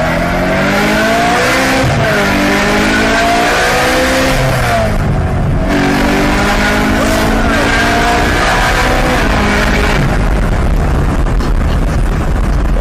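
Car engine under hard acceleration heard from inside the cabin, climbing in pitch and dropping back at the gear changes, with road and wind noise building as the speed rises.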